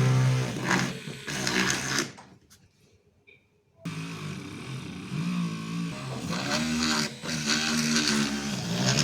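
Small DC motor of a homemade drill whirring, its pitch wavering up and down. It stops about two seconds in and starts again about two seconds later.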